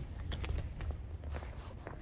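Footsteps on a concrete walkway: a string of short, uneven steps over a low steady rumble on the phone's microphone.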